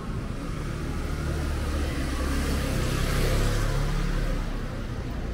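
A car passing close by on the street, its engine and tyre noise growing to loudest about three seconds in, then fading.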